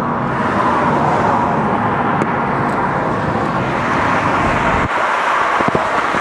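Steady road traffic noise; the low rumble drops away about five seconds in.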